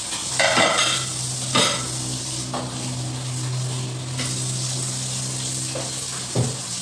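Food frying and sizzling in a pan on a gas hob while a spatula stirs it, scraping and knocking against the pan about half a dozen times. A steady low hum runs underneath and stops just before the end.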